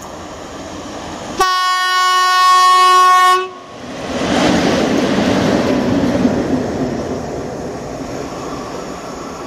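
PKP class ET22 six-axle electric locomotive running light, sounding one long horn blast of about two seconds as it approaches. It then passes close by with a rush of wheel-and-rail noise and a little clickety-clack, which fades as it moves away.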